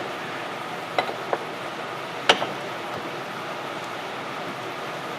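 Sharp metal clicks of a wrench and injector parts being handled, three strikes, the loudest a little past two seconds in, over a steady background hiss.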